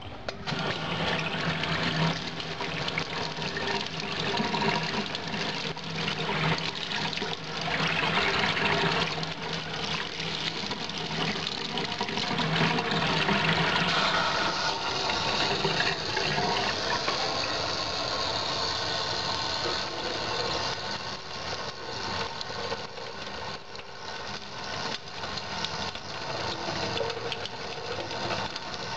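Kitchen tap running steadily into a stainless steel sink, the stream splashing on the steel and, near the end, on a leather knife sheath held under it to wet the leather for moulding.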